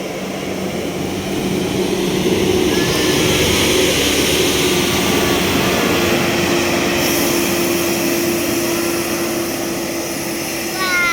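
Tour bus going past on the road, its engine and tyre noise swelling to a peak a few seconds in and staying loud. Right at the end a horn with several tones sounds, sliding down briefly and then holding.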